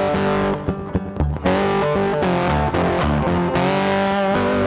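Background music led by guitar. It drops out briefly about half a second in, with a few short stabs, then comes back in full about a second and a half in.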